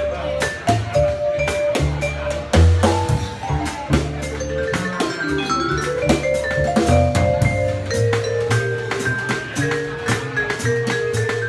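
Live jazz band: vibraphone played with mallets, a quick line of ringing notes, over plucked double bass and a drum kit with frequent cymbal and drum strokes.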